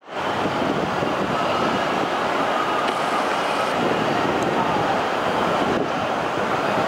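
Steady city ambience: an even din with no single sound standing out.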